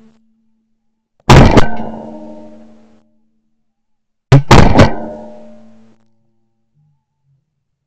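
Two volleys of shotgun fire at flying ducks, about three seconds apart, each two or three blasts in quick succession with a ringing tail that dies away.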